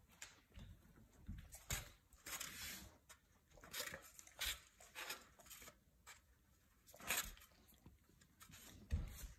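A husky licking at a small foam bowl: irregular wet licks and scrapes of the tongue against the bowl, a few of them louder than the rest.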